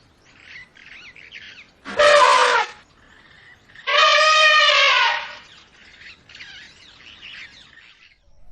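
Elephant trumpeting twice: a short blast about two seconds in, then a longer, steadier call about four seconds in. Faint bird chirps sound in between and after.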